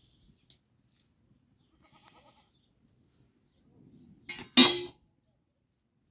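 A farm animal bleats once, loud, harsh and brief, about four and a half seconds in.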